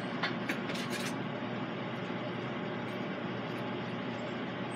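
Pizza cutter wheel rolling and scraping across a baked pizza crust and the cardboard box under it, with a few light clicks in the first second over a steady background hiss.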